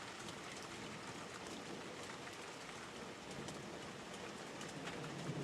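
Steady rain falling, with drops ticking on a surface close by. A low thunder rumble starts to build near the end.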